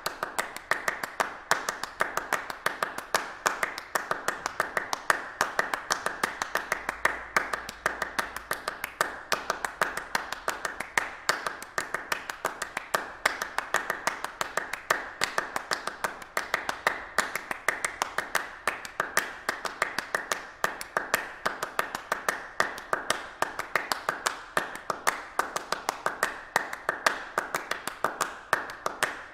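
Hands clapping: a steady run of sharp, separate claps several times a second.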